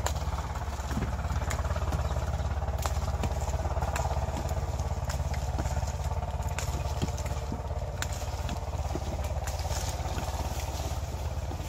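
An engine runs steadily with a low, fast pulse, while hand clippers snip kinnow mandarins from the branches in scattered sharp clicks.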